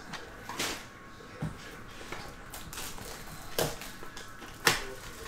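Shrink-wrapped cardboard trading-card boxes being handled on a table: a few separate knocks and crinkles as they are picked up and turned over, the loudest near the end.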